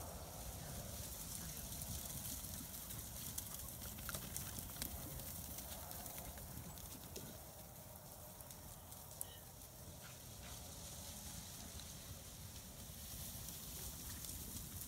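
A flock of sheep moving across a dry pasture, with scattered hoof steps and scuffs on the grass.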